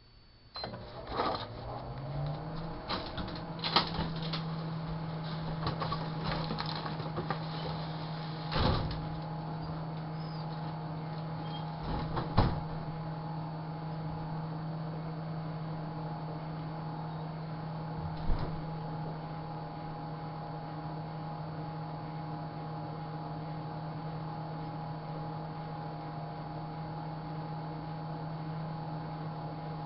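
Microwave oven starting up and running: its hum rises in pitch over the first couple of seconds, then runs steady. A few sharp knocks and clicks come in the first 18 seconds or so.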